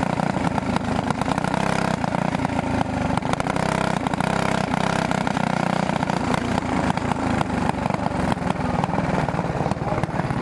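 Single-cylinder Briggs & Stratton Animal four-stroke kart engine running steadily, heard close up from a camera mounted on the kart.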